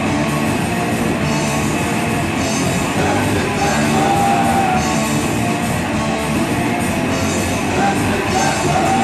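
Punk rock band playing live and loud: distorted electric guitars over a drum kit.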